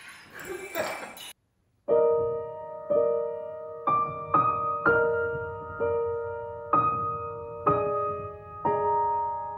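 Grand piano played solo, slow chords struck about once a second, each ringing and fading. It starts about two seconds in, after a brief noisy stretch and a moment of silence.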